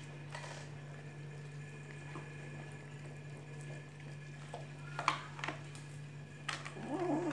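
Kittens eating chicken and rice from a foil tray: soft wet chewing and smacking, with a few sharp clicks a little past halfway, over a steady low hum.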